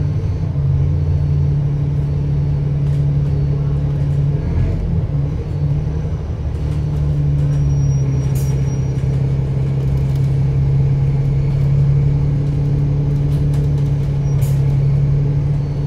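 Bus engine running steadily as the bus drives, heard from on board: a low, even drone that wavers and dips briefly about four to six seconds in, then settles back to the same steady note, with light clicks and rattles scattered over it.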